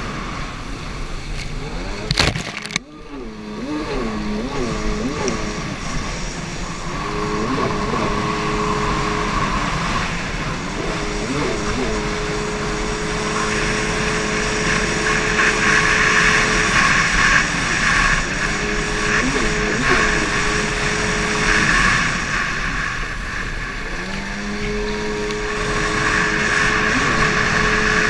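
Racing jet ski's engine heard on board, its pitch rising and falling as the throttle is worked through turns and holding steady on the straights, over the hiss of spray and wind. About two and a half seconds in there is a sharp crack, and the sound briefly drops out.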